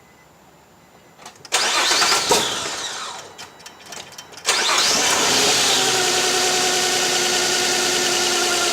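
The 2007 Nissan Quest's 3.5-litre V6 is started about a second and a half in and fires with a loud burst that fades away. At about four and a half seconds it catches again sharply and then runs steadily at idle, with one cylinder's coil feeding a spark tester.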